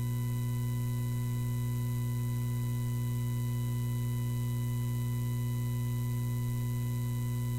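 Steady electrical mains hum: a low drone with a thin buzz of higher overtones above it.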